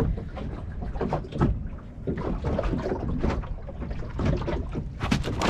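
A flathead flapping on a boat's carpeted deck: irregular soft thumps and slaps, with a sharper knock near the end, over a steady low rumble.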